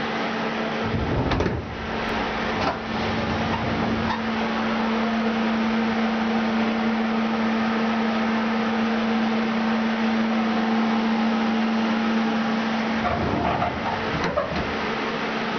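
Steady hum of a powered-up Ajax CNC lathe, with one constant tone under it. Its sliding guard doors run open about a second in and are slid shut again near the end.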